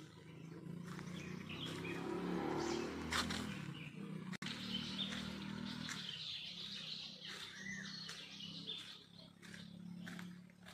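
Birds chirping in the trees over a low continuous hum.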